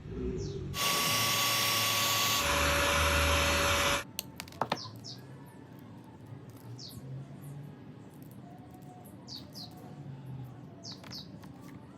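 A loud hiss with a steady whine starts about a second in; the whine drops in pitch halfway through, and the hiss stops abruptly about three seconds later. A few sharp clicks follow, and then small birds chirp in short, falling notes every second or two.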